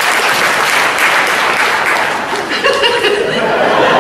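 Audience applauding, the clapping thinning out about halfway through, with a few voices calling out over it near the end.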